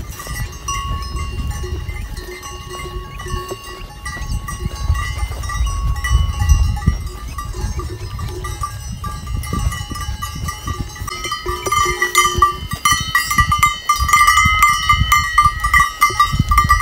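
Bells on a grazing flock of sheep and goats clinking and ringing as the animals move, several bells of different pitch at once. The ringing gets busier and louder in the last few seconds.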